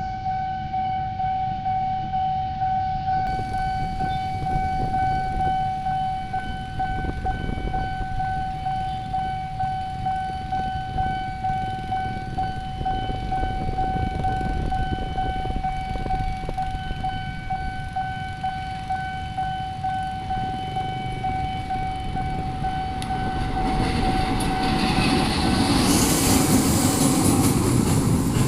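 A railway level-crossing warning signal sounds one steady high tone over the low rumble of waiting traffic. About 24 seconds in, a train arrives and passes with a loud rushing clatter of wheels and carriages, and the warning tone fades out.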